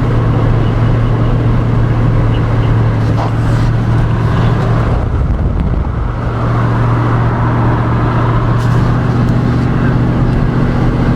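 Truck engine and road noise heard from inside the cab while driving: a steady low hum over a constant rush. The hum eases off briefly about five seconds in, then comes back.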